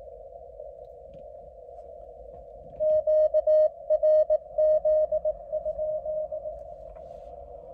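Shortwave radio receiver on the 30 m amateur band: a steady narrow hiss of band noise. About three seconds in, Morse code (CW) tones are keyed in dots and dashes for a few seconds, loud at first and weaker toward the end.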